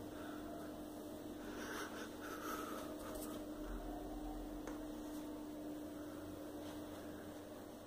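Steady low mains hum over faint room noise, with a few soft rustles about two to three seconds in and again near five seconds.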